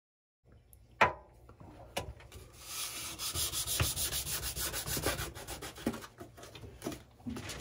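Countertop being hand-sanded with a sanding pad in quick back-and-forth strokes, scuffing the surface before it is painted. A sharp knock about a second in.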